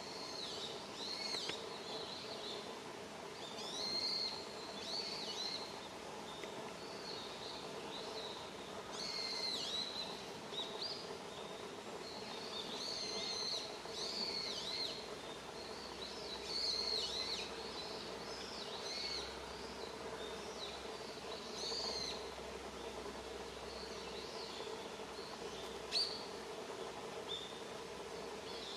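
Small birds calling: short, high chirps in loose clusters every second or two, over a steady low background noise. A single sharp click comes about 26 seconds in.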